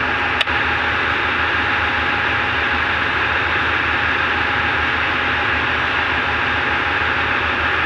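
Tugboat's diesel engines running steadily under towing load: an even, unbroken engine noise with a low hum, and a brief click about half a second in.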